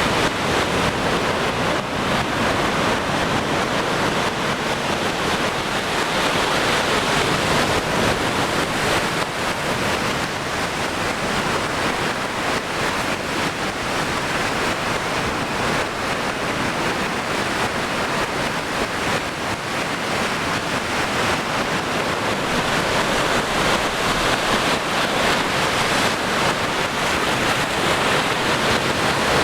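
Sea waves washing onto the shore, a steady, even rushing.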